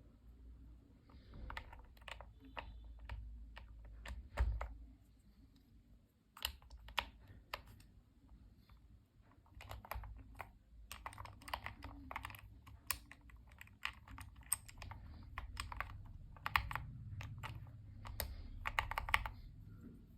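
Typing on a Tester 68 mechanical keyboard fitted with light 37 g Fantasy DVA switches lubed with Krytox 205 and 105 mix: irregular key clicks and clacks, with a short pause about five seconds in and faster typing after.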